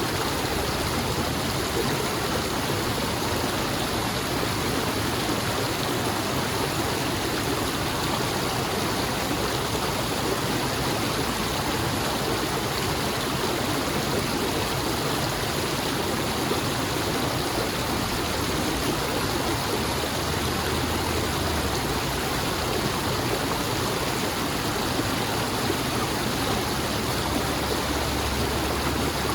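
Running water rushing steadily and evenly, with no breaks or changes in level.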